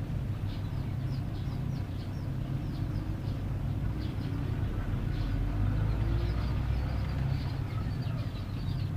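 Steady low hum, with small birds chirping over it, many short falling chirps.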